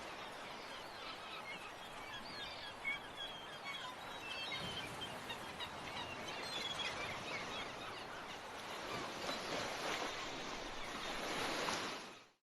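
Steady rushing outdoor noise like surf, with many short, high bird chirps through the first half or so. It cuts off abruptly near the end.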